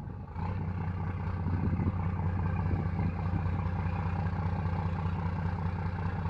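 Shamrock 31's Iveco Fiat diesel inboard engines running at low speed, a steady low drone that comes in about half a second in.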